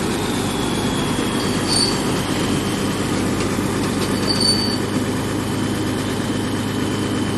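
A diesel farm machine's engine running steadily under a thin high whine that slowly drops in pitch and then holds, with two short high squeaks about two and four seconds in.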